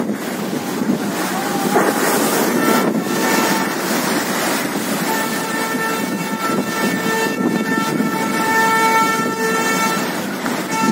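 Strong cyclone wind blowing on the microphone over heavy surf breaking against a sea wall. From about five seconds in, a steady horn tone sounds on through to the end.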